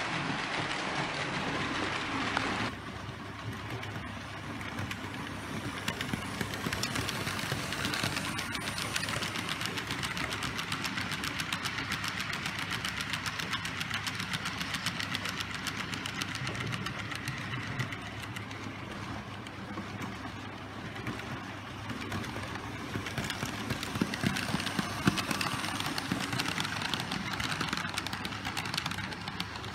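Märklin H0 model freight train rolling along metal M-track: a steady, rapid run of fine clicks and rattle from the wagon wheels on the rails.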